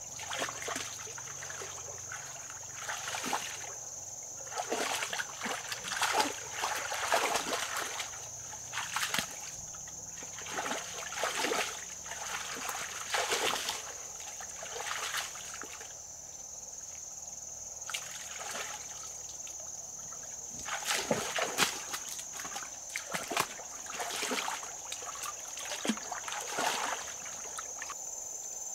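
Irregular bouts of splashing and sloshing in shallow water, with a steady high-pitched insect drone throughout.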